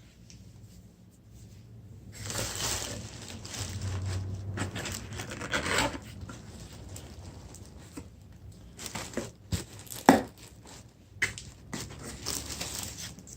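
Packaging around mail-order houseplants being rustled and torn open for several seconds, with a sharp knock about ten seconds in and more rustling near the end.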